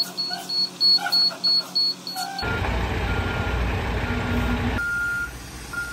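A short burst of music with a quick beat, then a cut to a heavy truck's engine running while a reversing alarm beeps about once a second; the grapple saw truck is manoeuvring on the driveway.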